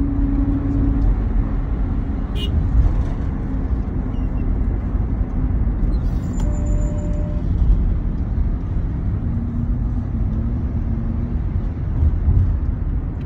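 Steady low rumble of engine and road noise from inside a moving van, with a single short click about two and a half seconds in.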